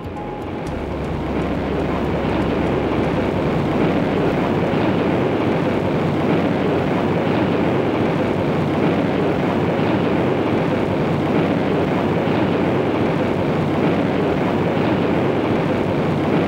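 Steady jet engine noise of a B-52 mothership in flight, carrying the X-15 aloft. The noise swells up over the first couple of seconds and then holds even.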